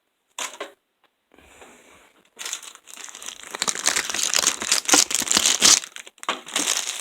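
Crinkly packaging being handled and crumpled: a brief rustle, then a few seconds of dense crinkling from about two and a half seconds in, with a short gap before it resumes near the end.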